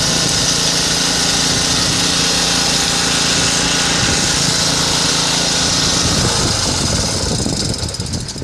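Small Chinese generator engine running steadily. About six seconds in its even note breaks up, and the sound dies away toward the end.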